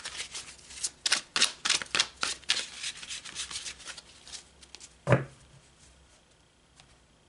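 A deck of oracle cards being shuffled by hand: quick papery slaps about three to four a second, stopping after about four and a half seconds. A single louder thump follows about five seconds in.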